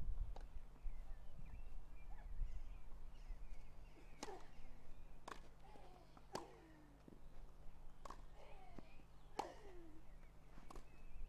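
Tennis ball being struck back and forth in a rally on a grass court: sharp racket-string pocks, about six of them, one every second or so, starting about four seconds in.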